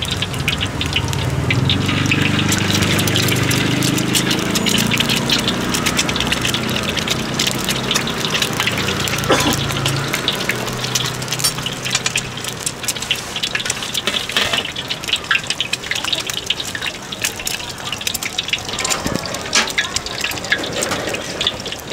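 Eggs deep-frying in hot oil in a wok, a steady sizzle full of fine crackles and pops. A low rumble runs under it for about the first ten seconds.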